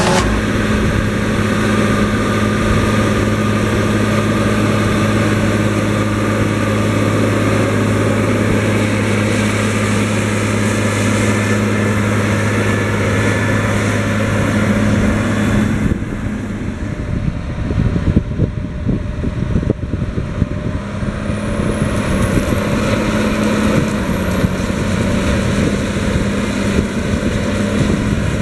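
Case IH STX 450 Quadtrac's big diesel engine running steadily under load, pulling a five-furrow plough. The drone changes and thins about halfway through, then settles back to its steady note.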